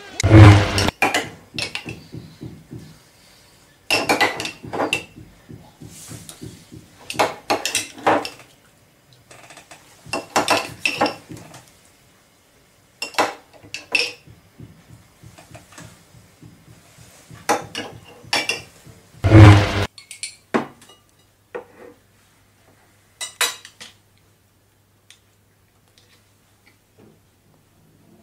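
Table knife clinking and scraping against a glass plate and a mayonnaise jar, in short bursts every few seconds, while mayonnaise is spread on sandwiches. Two heavier knocks stand out, one at the start and one about two-thirds through. The last stretch is quieter, with only a few faint clicks.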